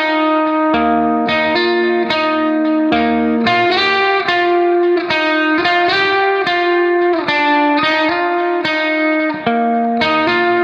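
Music: a melody of plucked guitar notes, changing about every half second at an even level.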